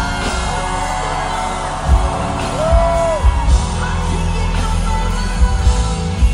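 Live R&B song played loud through a concert PA: a woman's voice sings held, sliding notes over a deep bass line, with heavy kick-drum thumps about two seconds in and again near the end.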